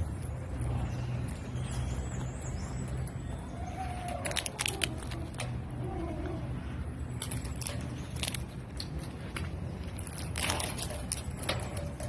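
Severe macaw cracking and crunching a peanut shell in its beak: scattered sharp cracks that come in three clusters, about four seconds in, near eight seconds and near the end.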